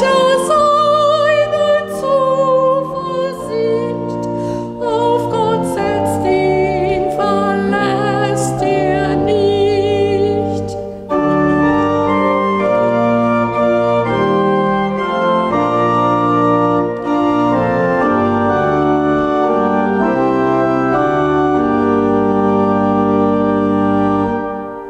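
A woman sings with vibrato over church pipe organ accompaniment; about eleven seconds in her voice stops and the pipe organ plays on alone in held chords, fading away at the very end.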